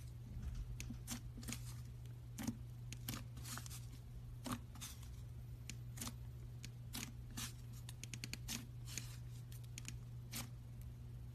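Fluffy slime being handled, giving irregular sticky clicks and pops, sometimes in quick runs, over a steady low hum.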